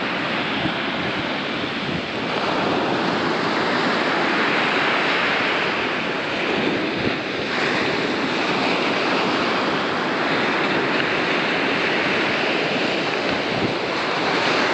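Waves breaking and washing on a beach, a dense roar of surf that swells and eases every few seconds, with wind buffeting the microphone.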